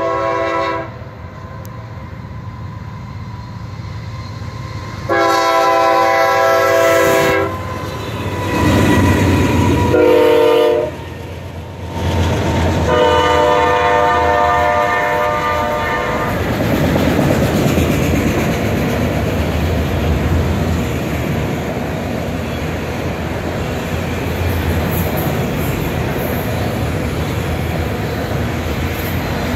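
Freight locomotive horn sounding a series of long blasts, its pitch dropping about ten seconds in as the locomotive passes. After that the autorack cars roll by with a steady rumble and clatter of wheels on the rails.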